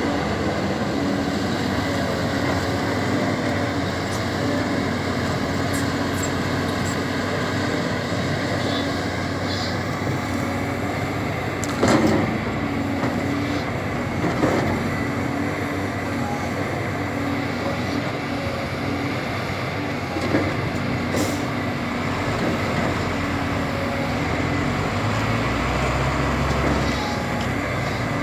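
Caterpillar 320D excavator's diesel engine running steadily as it works, with a couple of sharp knocks about twelve and fourteen seconds in.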